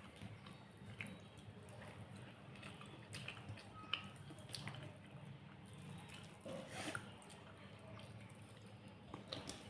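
Faint, wet eating sounds of someone chewing a rice-and-curry meal: soft mouth and lip noises with scattered small clicks over a low steady room hum.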